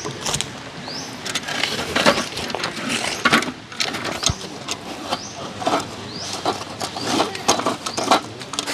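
Irregular rustling and clattering, like gear being handled, with a short rising bird chirp repeated a few times.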